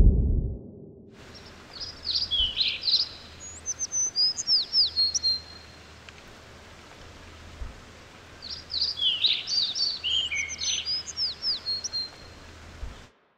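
A songbird singing in woodland: two phrases of quick, high chirps and downward-sweeping whistles, each lasting a few seconds, over a steady faint outdoor hiss. A low rumble fades out in the first half-second.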